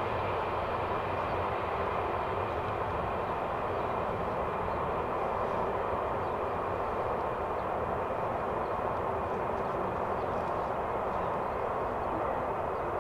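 Xian Y-20A's four D-30KP-2 turbofan engines running steadily, a continuous jet rush with a thin high whine.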